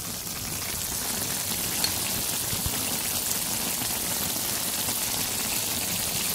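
Diced beef with bay leaves cooking in its own juices in a pan: a steady sizzle and bubbling, a little louder after the first second.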